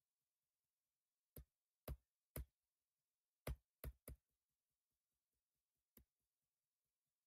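Seven sharp, short clicks in an uneven run, two pairs and a close triplet, with the last one standing alone; near silence between them.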